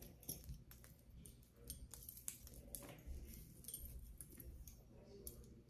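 Faint, scattered clicks and clinks of costume jewelry being handled: vintage clip-on earrings.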